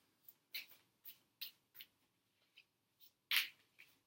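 Tarot cards being shuffled by hand: a string of short, soft card snaps and slides at uneven intervals, with one louder swish a little over three seconds in.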